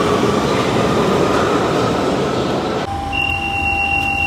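London Underground Central line 1992 stock train running alongside an underground platform, a dense rumble and rattle. About three seconds in the sound cuts abruptly to inside the carriage, where a steady two-note electronic tone starts.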